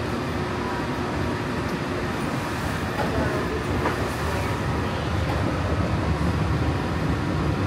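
Walt Disney World monorail train running along its beam, heard from inside the cabin: a steady rumble and hum of the moving train.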